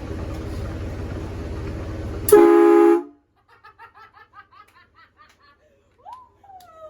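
A vehicle-mounted train horn sounds one loud blast of under a second, a chord of several tones over the running engine, and cuts off sharply. Then it goes much quieter, with faint voices, and near the end a cat meows with a rising-then-falling cry.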